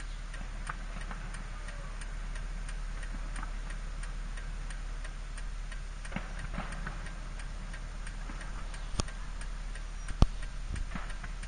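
Car turn-signal indicator ticking steadily inside the cabin over a low, steady hum from the stopped car. Two sharper pops stand out near the end.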